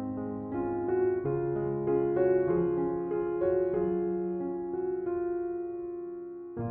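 Background music played on a keyboard: a slow melody over held chords, with notes changing about every half second.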